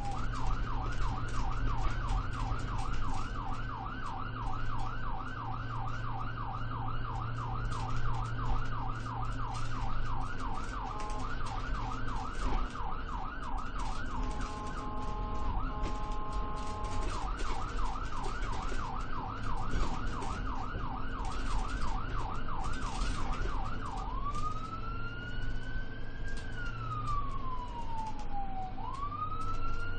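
Ambulance siren changing modes while driving: a fast yelp sweeping up and down about four times a second, a short stretch of steady stepped tones midway, the yelp again, then a slow wail rising and falling near the end. Engine and road noise hum steadily underneath.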